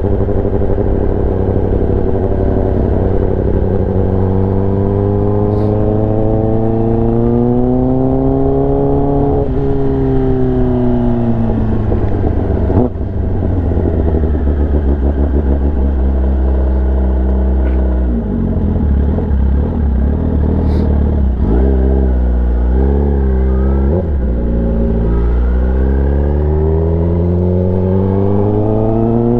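Kawasaki ZX-10R's inline-four engine through an SC-Project exhaust, the revs climbing slowly for several seconds, then dropping off, running low and wavering, and climbing again near the end.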